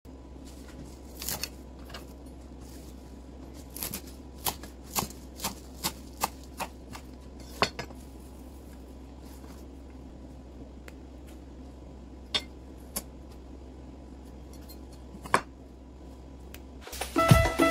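Chef's knife knocking on a wooden cutting board as herbs are chopped: about a dozen sharp, irregular taps, most in the first eight seconds, then three more spaced out. Music comes in just before the end.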